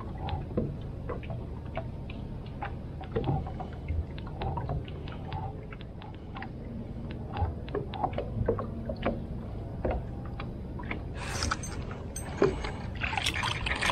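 Small scattered clicks and knocks on a fishing boat over a low steady hum, then louder splashy rushes from about eleven seconds in, as a crappie is brought to the boat.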